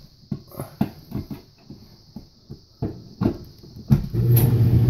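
A few knocks and clicks, then about four seconds in the LG DLE4870W clothes dryer's drum motor starts and runs with a steady hum, although the dryer is switched off. It is the runaway fault put down to a sticking relay on the main control board.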